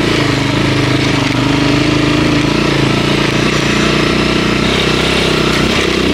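A vehicle's engine running steadily while under way, its pitch drifting slightly, over a constant rush of road and wind noise.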